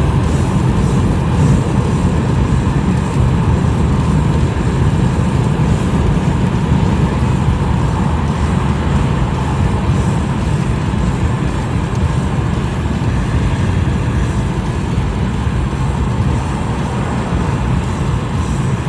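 Steady, loud rumbling noise of a moving road vehicle, even throughout without distinct events.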